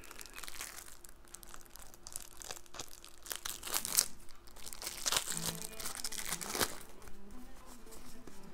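Plastic shrink-wrap crinkling and tearing as it is stripped off a deck of game cards, in irregular crackles, loudest about four seconds in and again near six and a half seconds.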